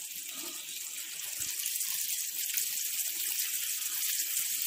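Melted butter sizzling in a hot pan: a steady hiss full of small crackles, growing a little louder.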